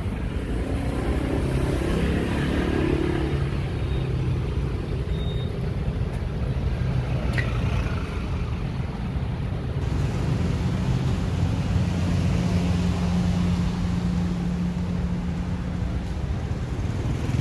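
Street traffic dominated by motor scooters and motorcycles running and passing: a steady low engine rumble, with one engine note held steady for a few seconds near the end.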